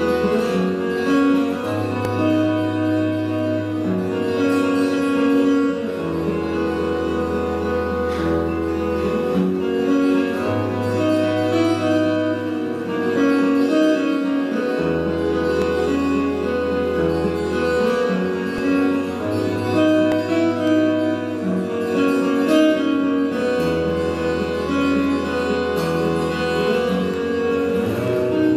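Solo fingerstyle acoustic guitar: long bass notes alternating between two pitches about every four seconds under a picked melody.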